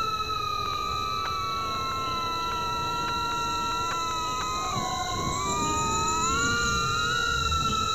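Micro FPV quadcopter's motors whining, several tones sliding in pitch with the throttle: they dip about five seconds in and climb back up a second or two later.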